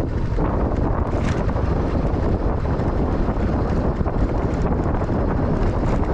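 Wind buffeting the microphone of a motorcycle rider on the move, a steady low rumbling noise over the sound of the motorcycle going downhill.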